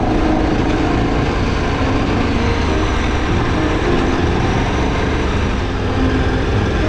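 Adventure motorcycle engine running steadily while riding a dirt track, picked up by a camera mounted on the bike, with a dense rumble of wind and road noise over it.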